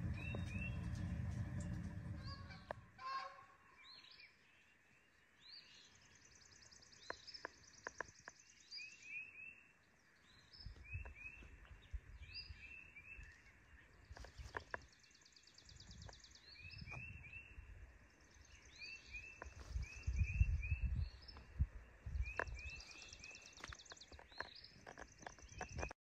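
Wild birds calling repeatedly: short chirps in twos and threes, alternating with longer high trills. Gusts of wind rumble on the microphone at the start, about ten seconds in and again around twenty seconds in.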